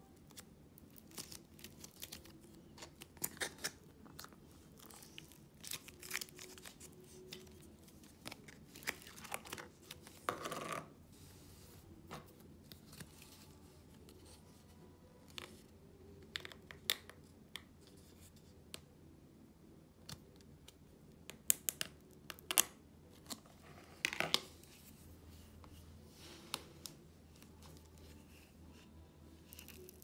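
Air-dry clay being squeezed, pulled apart and pressed by hand, giving irregular soft crackles and tearing sounds with scattered sharp clicks. There are louder clusters about three seconds in, around ten seconds, and again past twenty seconds.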